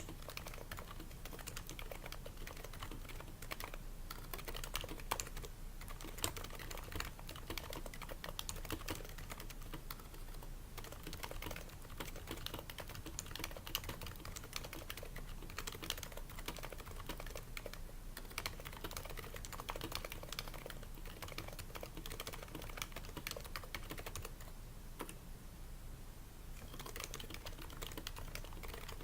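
Continuous typing on a Happy Hacking Keyboard Professional 2 with Topre electro-capacitive switches, their keystrokes dampened by o-rings and lubed slider rails: a rapid, steady stream of key presses with brief lulls now and then.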